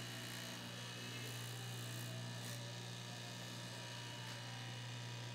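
Electric straight-knife cloth cutting machine running with a steady low buzzing hum as its vertical reciprocating blade cuts through a stack of neoprene sheets.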